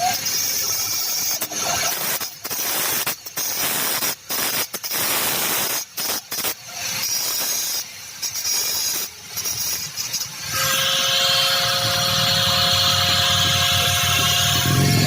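Shop tool work: broken, rasping, stop-and-start noise, then about ten seconds in a power tool runs steadily with a high, whining squeal.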